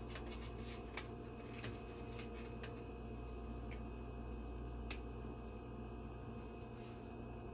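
Faint rustling and a few scattered soft clicks of a plastic vacuum-seal bag being handled as sage leaves are tucked in with the meat, over a steady low electrical hum.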